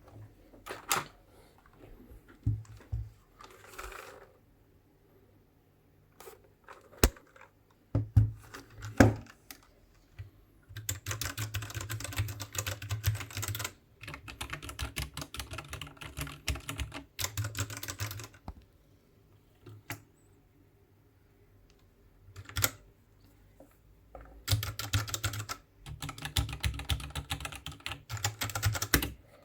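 Royal Kludge RK68 mechanical keyboard with brown switches being typed on. It starts with a few separate keystrokes, then comes in fast runs of typing, with pauses between the runs.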